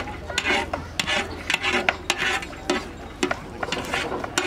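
Irregular rasping scrapes and knocks of a cooking utensil worked against a large pot, as when food is stirred and scraped in bulk.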